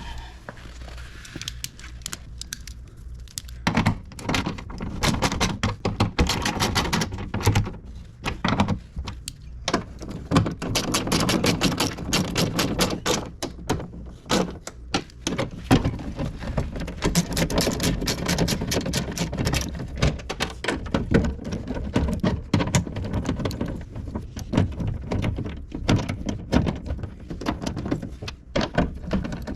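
Hand ratchet with a 10 mm socket clicking in quick runs, mixed with knocks and rattles of metal, as the bolts holding a new window regulator inside a car door are tightened.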